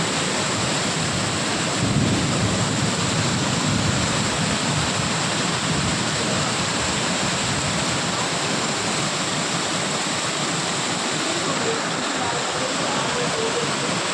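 Steady heavy rain pouring down, an even hiss, a little fuller about two seconds in.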